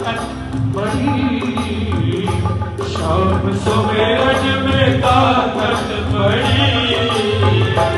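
Loud devotional bhajan singing with a band, played over big loudspeakers: a voice singing over a heavy bass beat.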